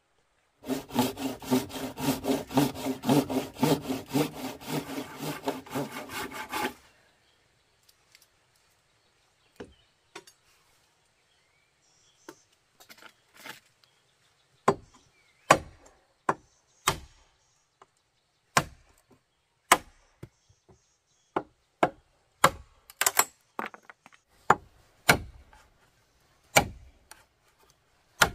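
A squared wooden post being worked with a hand tool. First comes a fast, even run of strokes on the wood lasting about six seconds. After a short pause come single sharp chopping blows into the post, roughly one a second, splitting chips off its top.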